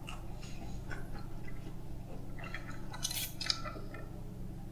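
A person quietly chewing a mouthful of Korean corn dog, then a short noisy slurp through a drinking straw about three seconds in. A steady low hum runs underneath.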